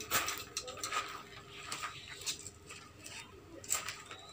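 Scattered light clicks and taps of pedestal fan parts being handled and fitted onto the motor.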